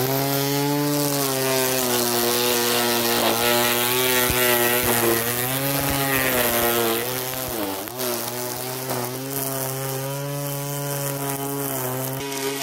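Ozito 18V cordless grass trimmer starting abruptly and running with a steady electric-motor whine over a hiss; its pitch sags briefly several times as the spinning line bites into grass.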